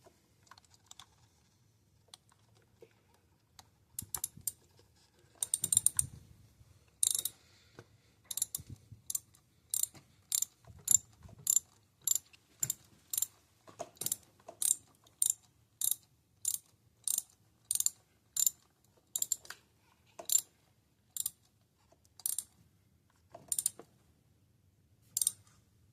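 Ratchet wrench clicking as it runs a new spark plug down into a Ford 2.5L four-cylinder head, short clicks about twice a second that slow and spread out near the end.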